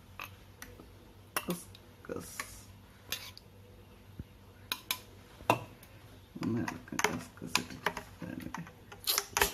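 Steel spoon giving scattered light clinks and scrapes against a steel bowl and glass tumblers as soaked basil seeds are scooped into glasses of juice.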